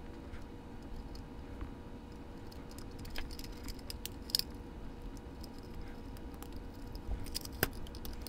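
Light handling noises and scattered small plastic clicks as the side frames of a TYCO power truck are snapped back on and the truck is fitted by hand, with a few sharper clicks in the middle and near the end.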